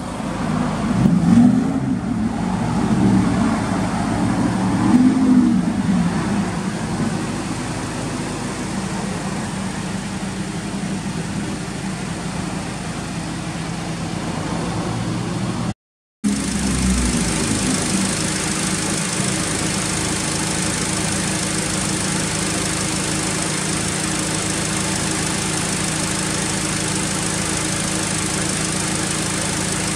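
Honda Accord Euro R's K20A four-cylinder engine, breathing through a Mugen titanium exhaust, blipped about three times in the first six seconds and then settling to a steady idle. The sound cuts out for a moment just before halfway, and the engine is idling steadily when it returns.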